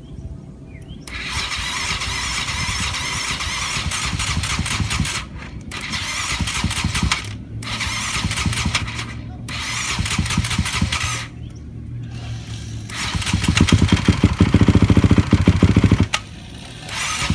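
2006 Honda CRF450X 450cc single-cylinder four-stroke engine being cranked over in several tries with short pauses between them, on its first start after a rebuild. About 13 seconds in it catches and runs loudly, dies suddenly a few seconds later, then fires again near the end.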